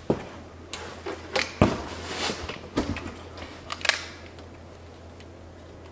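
A scattered series of sharp clicks and light taps as a wire and a utility knife are handled on a metal workbench, with a quick cluster of clicks near the end of the handling. A steady low hum runs underneath.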